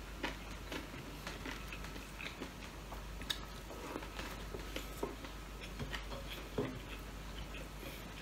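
A person eating with his hands close to the microphone: irregular soft clicks and smacks of chewing and biting, with fingers picking food from a plate.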